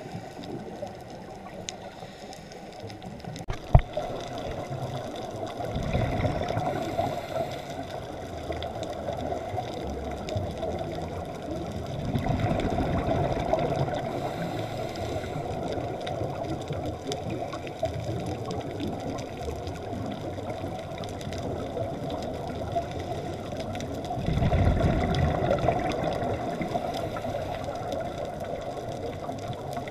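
Scuba diver's exhaled bubbles heard underwater through a camera housing: a steady muffled hiss with three swells of low bubbling rumble as the regulator exhausts. A single sharp click comes about four seconds in.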